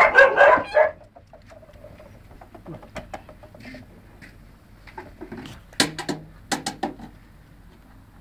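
Border Collie puppies yapping and squealing in play: a loud burst of high yips in the first second, then a few more short yips about six to seven seconds in.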